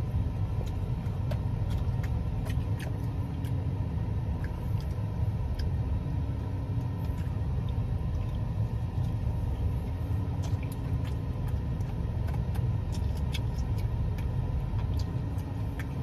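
Steady low rumble, such as an idling car engine heard from inside, with faint scattered clicks and smacks of someone eating a sandwich.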